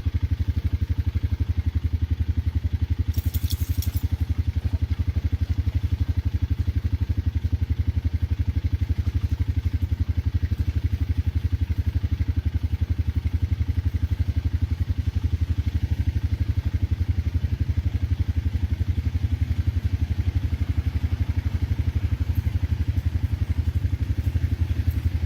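Off-road vehicle's engine running steadily with an even, rapid low pulsing, with a brief clatter about three seconds in.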